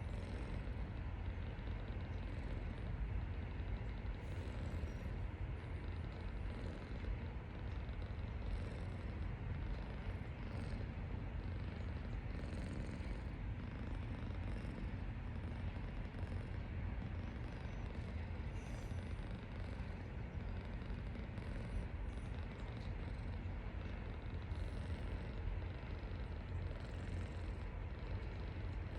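A resting Persian cat's low, steady rumble, the continuous sound of its breathing purr or snore.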